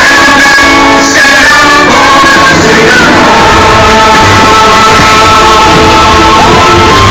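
Loud music with singing, long held notes and gliding voices over a full backing.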